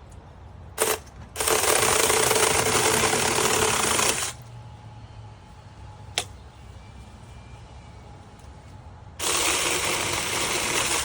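Taranzy 6-inch cordless mini chainsaw running in bursts on its trigger. There is a quick blip about a second in, then a run of about three seconds, and another run of about two seconds near the end.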